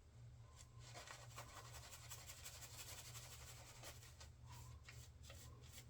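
Faint, quick scratchy rubbing of a shaving brush's bristles working lather.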